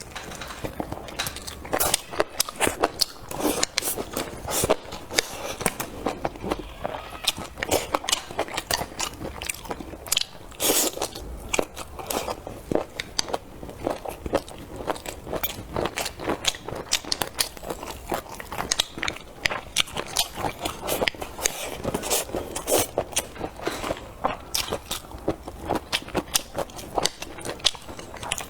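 A person eating close to the microphone: biting and chewing with crunchy, crackling clicks coming irregularly throughout.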